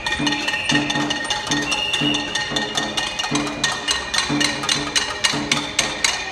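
Many pots and pans being banged by hand in a protest casserolade: a dense, continuous clatter of metal strikes, over a regular lower beat of about two pulses a second.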